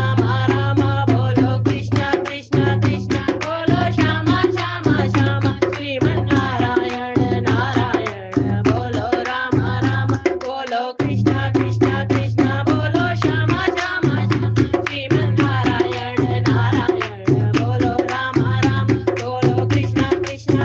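Hindi devotional bhajan music: a steady tabla-like drum beat under a bending melodic line. The bass beat briefly drops out about halfway through.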